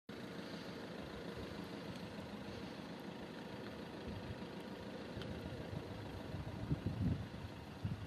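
Car engine idling steadily, a low even rumble, with a few low thumps near the end.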